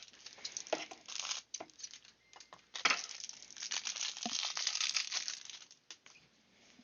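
Small plastic packaging bag crinkling and rustling in irregular bursts as it is pulled and torn at to get it open, stopping about six seconds in.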